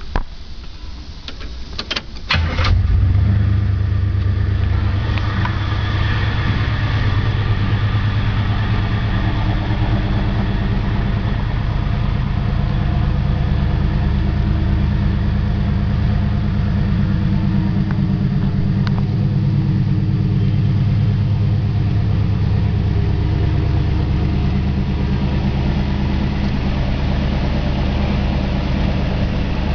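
1979 Pontiac Trans Am's 403 cubic-inch V8 being cranked by the starter, catching about two and a half seconds in. It then idles steadily through its dual exhaust.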